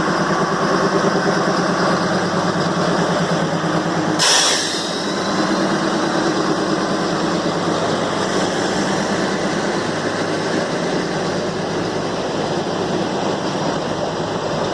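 Matheran toy train's diesel locomotive running steadily, with a pulsing engine note. About four seconds in comes a short, sharp burst of noise with a brief high ringing after it, and then the running noise carries on more evenly.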